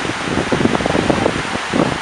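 Small waves breaking and washing up the beach, under steady, uneven wind rumble on the microphone.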